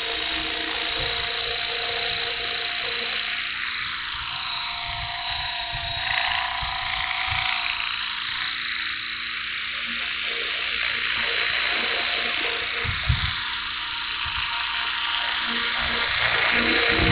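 Electric 500-size RC helicopter flying on a 6S battery: a steady high motor whine over the whoosh of the spinning rotor, its pitch sweeping as the helicopter flies out and back past. It is running on a newly replaced main shaft bearing.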